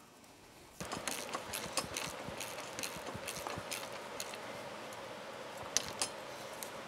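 Ratchet wrench clicking rapidly as it runs down the nut on a new ATV tie rod end, starting about a second in.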